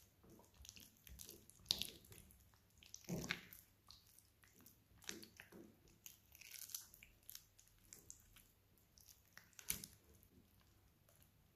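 Small spatula stirring and scraping a thick mascarpone and yogurt cream in a glass bowl: faint, irregular wet scrapes and taps, the sharpest about two seconds in and again near the end.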